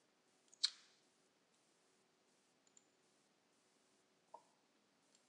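A few sharp computer mouse clicks over near silence, the loudest about half a second in.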